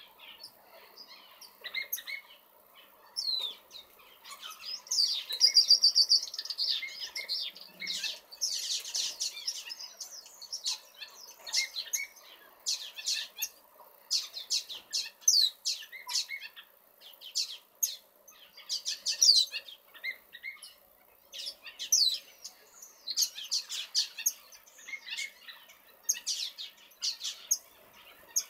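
Small aviary finches and waxbills chirping and calling over one another: a continual scatter of short, high chirps and trills, busiest about five seconds in.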